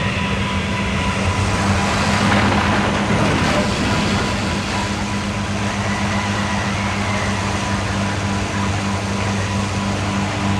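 Blow dryer switching on and running steadily: a motor hum under a rush of air.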